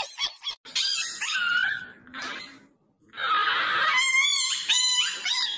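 A dog whining and yelping: a few short high cries, then a louder run of high, wavering whines from about three seconds in.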